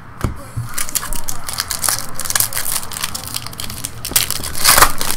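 A foil trading-card pack wrapper being crinkled and torn open, a dense crackling that peaks in a loud rip near the end. A couple of light card clicks come just before it, near the start.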